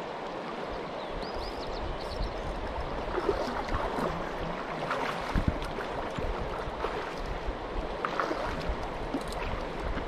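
Shallow creek water flowing and gurgling steadily over mud and stones, with a few small splashes and clicks.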